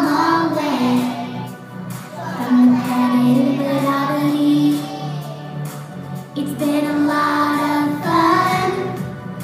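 A group of five- and six-year-old children singing together over backing music, in sung phrases with short breaks about two seconds and six seconds in.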